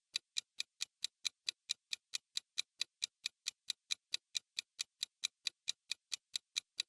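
Clock-tick countdown sound effect: rapid, evenly spaced sharp ticks, several a second, marking the time left to answer a quiz question.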